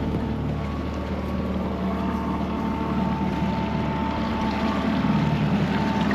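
Fishing boat's engine running steadily at trolling speed: a low, even hum with a thin steady whine above it.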